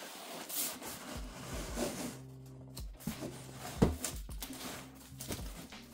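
Large cardboard box being handled and shifted on a table: scrapes, rustles and knocks, with a sharp knock nearly four seconds in, over soft background music.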